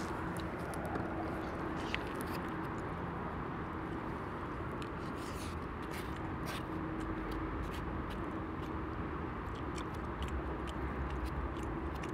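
Steady outdoor hum of distant traffic, with soft chewing and small clicks and scrapes of a plastic utensil in a foam takeout container.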